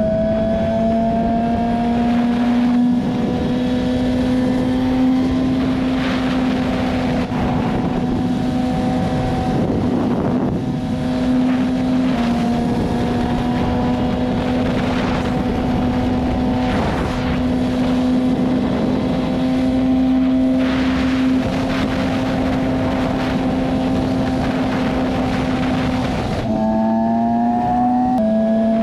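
BMW S1000RR's inline-four engine running at steady revs while cruising, with wind rushing past. The pitch holds nearly level, steps up briefly near the end and then drops back.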